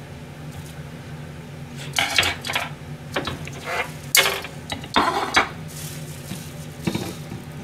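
A ceramic plate and a metal wire cooling rack being handled on a stainless-steel kitchen counter: about five short clatters and scrapes, starting about two seconds in. A steady low hum runs underneath.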